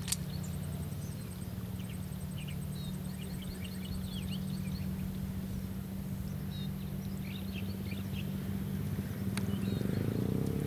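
Small birds chirping in short, quick calls, with a thin, rapid ticking trill in the first few seconds, over a steady low hum.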